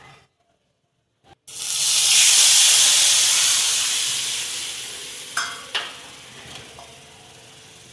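Hot oil in a cooking pot sizzling in a sudden loud burst as something is added to it, then dying down over a few seconds. Two short utensil clicks come partway through.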